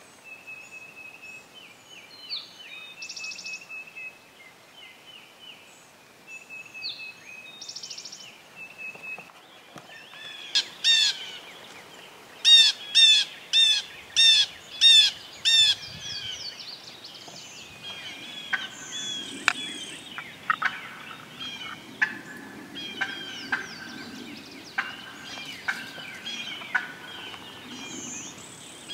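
Wild turkey hen calling: a run of about eight loud yelps at roughly two a second, followed by many quick, irregular sharp notes, the excited calling hunters call cutting. Small songbirds sing faintly before the yelps begin.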